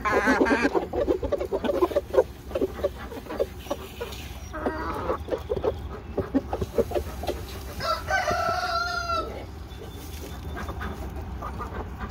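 Domestic chickens clucking: a dense burst of short clucks at the start that thins out over the next few seconds, then a longer, drawn-out pitched call about eight seconds in.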